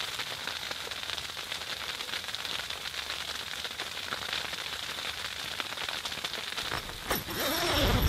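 Icy precipitation pattering steadily on the tent fabric, a dense hiss of fine ticks. Lower rustling sounds join near the end.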